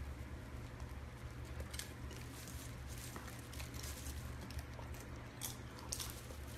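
Golden retriever chewing popcorn with its mouth open: irregular small crunches and clicks, a few sharper ones about two seconds in and near the end.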